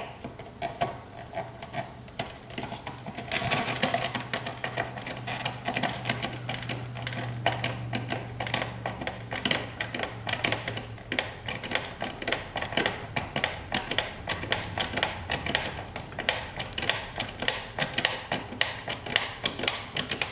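Hand screwdriver turning small self-threading screws into the unthreaded plastic of a car door-mirror housing: a long run of quick clicks that grows sharper and more regular in the second half, about three or four a second near the end.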